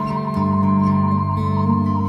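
Slow instrumental background music: a long wavering high note held over sustained low notes, swelling a little about a third of a second in.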